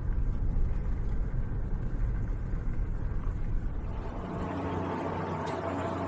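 Cargo van driving on a country road, with low road and engine rumble heard inside the cab. About four seconds in, the rumble gives way to a steadier, softer outdoor hiss.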